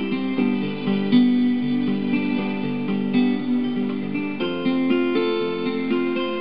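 A lullaby played on an electronic keyboard, with melody notes over sustained chords, heard as the playback of a video on a computer.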